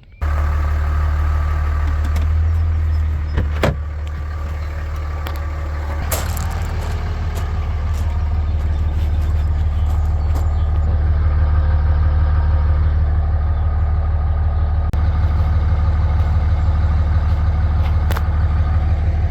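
A vehicle engine running steadily with a strong low hum, slowly getting louder, with two sharp clunks in the first six seconds.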